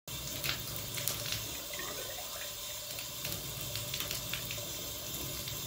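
Bathtub faucet running steadily, its stream splashing into the tub while a copper pipe is held under it to fill, with a few light taps.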